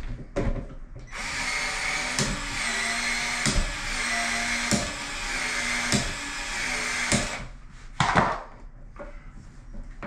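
Cordless PEX expansion tool running for about six seconds, its motor steady, with a sharp click about every second and a quarter as the head works the pipe end and ring open. A loud knock follows near the end.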